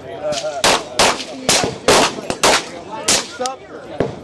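Semi-automatic rifle fired in a quick string of about six loud shots, roughly half a second apart, with fainter cracks in between.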